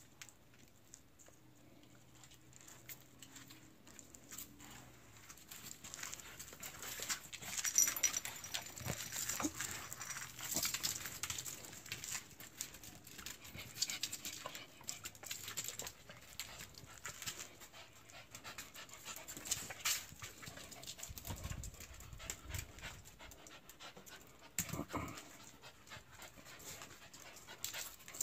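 Dogs panting hard, with irregular scuffling and scraping as they bite and worry a snake on a concrete floor.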